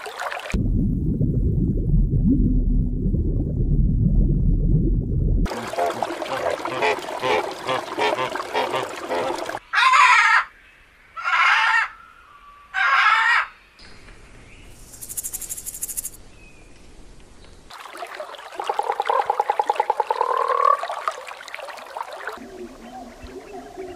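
A string of separate animal clips: water sounds, then three loud harsh screeches from a palm cockatoo about a second apart, then a frog's pulsed croak rising in pitch.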